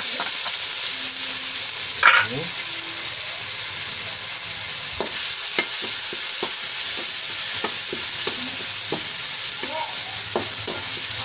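Chopped garlic sizzling as it fries in a metal wok, with a steady hiss. A spatula stirs it, scraping and tapping against the pan at irregular intervals.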